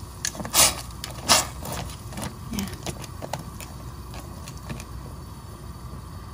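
Wooden chopsticks knocking against a stainless steel pot while stirring dried rice vermicelli sheets in boiling water. Two sharp clacks come about half a second and a second in, then lighter taps, over a steady low rumble.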